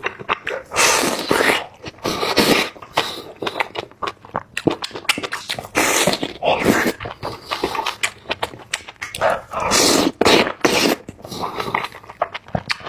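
Close-miked eating sounds: irregular bursts of chewing and wet mouth noises with sharp clicks between them.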